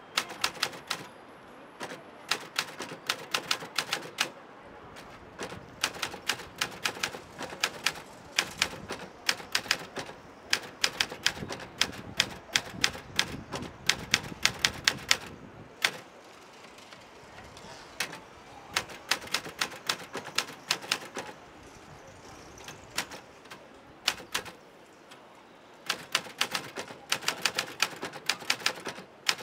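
Portable typewriter being typed on fast, its keys clacking in quick runs broken by short pauses.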